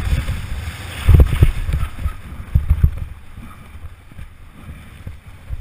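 Downhill mountain bike at speed on a rough dirt trail: wind rushing over the microphone with the rumble and knocks of the tyres and suspension, heaviest about a second in and again near three seconds, then running quieter.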